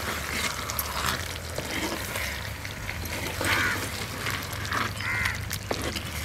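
Birds calling outdoors, a few short separate calls, over a steady low hum.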